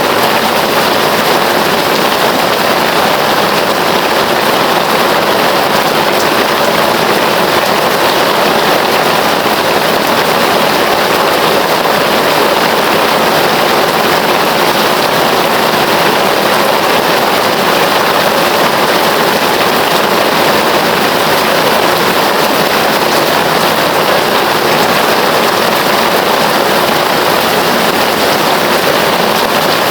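Heavy rain falling in a steady, dense hiss with no breaks or separate drops standing out.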